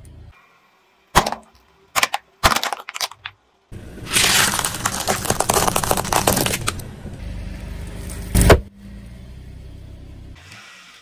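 A car tyre rolls over and crushes objects. First come several short sharp cracks, then a few seconds of dense crunching and crackling as pistachio shells break under the tyre. One loud sharp pop comes about eight and a half seconds in.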